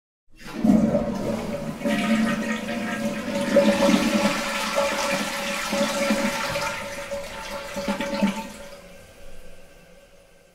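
Toilet flushing: water rushes loudly from the cistern into the bowl for about eight seconds with a steady whistling tone running under it, then dies away to a faint trickle near the end.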